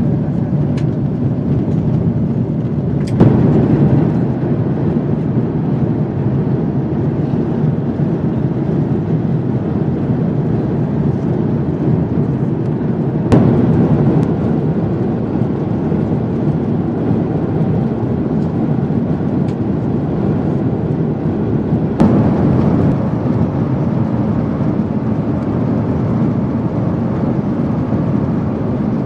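Steady low roar of Airbus A350 cabin noise in flight: jet engine and airflow noise heard from inside the cabin. Three brief clicks, about 3, 13 and 22 seconds in, each followed by a slight jump in the roar.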